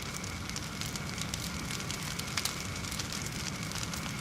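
Forge fire burning with a steady hiss and many small irregular crackles and pops.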